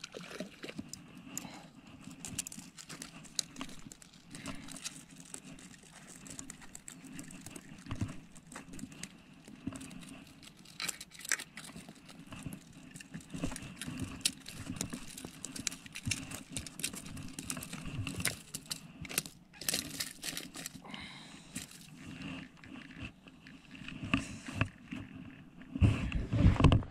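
Irregular close-up clicks, scrapes and rustles of an angler handling landed mackerel and fishing tackle on bare rock, with a few louder low thumps near the end.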